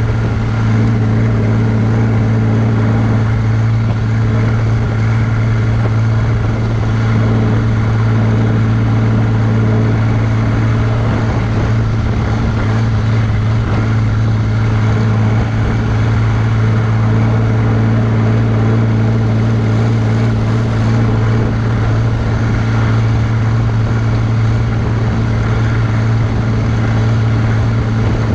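John Deere 3140's six-cylinder diesel engine running at a steady cruising speed as the tractor drives along the road towing a trailer. It makes an even, unchanging drone.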